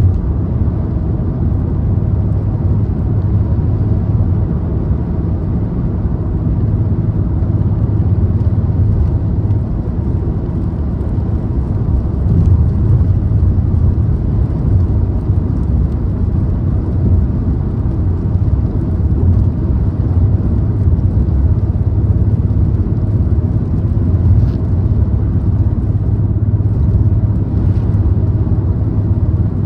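A car cruising at speed: a steady, low rumble of engine and tyres on the road.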